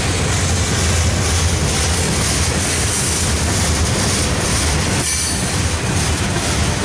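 Norfolk Southern manifest freight train rolling past: steady rumble and clatter of steel wheels on the rails as hopper cars and then tank cars go by, with a brief dip in the rumble about five seconds in.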